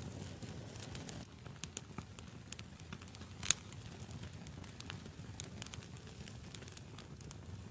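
Wood campfire burning, with a steady low rush of flame under scattered crackles and pops. One pop, about three and a half seconds in, is much louder than the rest.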